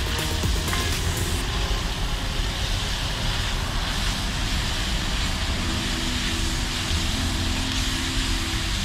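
Sausage frying in a pan on a stove: a steady sizzle over a low rumble.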